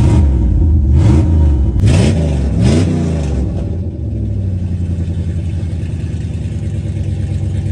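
Second-generation Dodge pickup's engine revved in a few quick blips, its pitch rising and falling, then settling to a steady idle about four seconds in.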